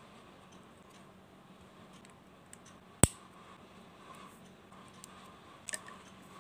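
Lego plates being pressed onto studs: one sharp plastic click about three seconds in, the loudest sound, and a quick double click near the end, with a few faint ticks between.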